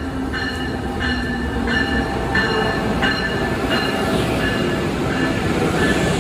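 Train moving nearby with a low rumble that grows louder, its bell ringing steadily at about one and a half strokes a second.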